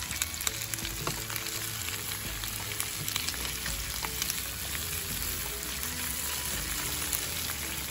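Meat and vegetables sizzling steadily on a Korean grill pan. Tongs click lightly against the pan now and then as the food is turned.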